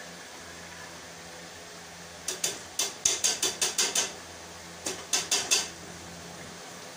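A metal utensil knocks against a cooking pot in two quick runs: about nine sharp clinks, a short pause, then four more. A steady hum runs underneath.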